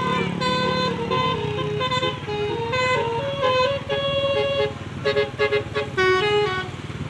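A bus's telolet basuri multi-tone horn playing a melody of short stepped notes, ending in a quick run of staccato blasts, over the low rumble of the bus engine.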